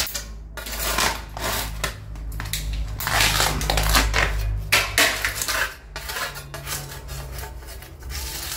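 A metal putty knife scraping a loose, peeling white coating off a painted wall in several rough strokes of uneven length, the layer tearing and flaking away as it goes.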